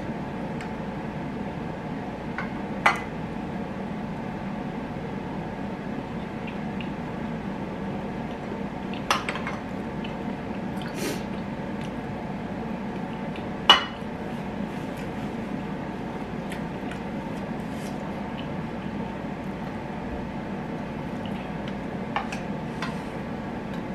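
Close-up eating sounds: wet chewing and mouth noises, with a handful of short sharp clinks of a metal spoon and fork against a ceramic bowl and plate, loudest about two-thirds of the way through. A steady low hum runs underneath.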